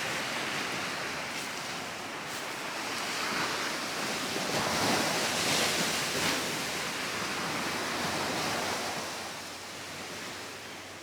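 Ocean surf washing ashore: a steady rush of breaking waves that swells to its loudest about halfway through, then slowly fades.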